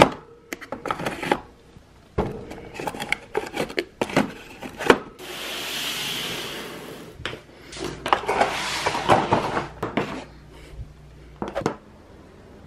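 Small nail-polish bottles and jars clicking and clattering as they are handled. About five seconds in comes a smooth hiss of about two seconds, followed by a stretch of crinkly rustling.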